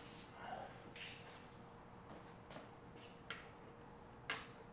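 Faint, spaced clicks and light knocks, about four in a few seconds, from slowly turning an LS1 engine over by hand so that a dial indicator sweeps around the bellhousing bore.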